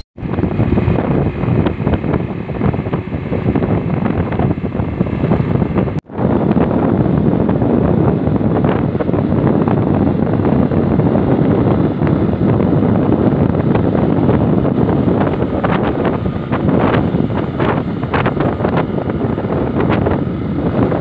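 Wind rushing over the microphone of a camera on a moving 125 cc motorcycle, over the bike's engine and road noise. The sound drops out for an instant about six seconds in.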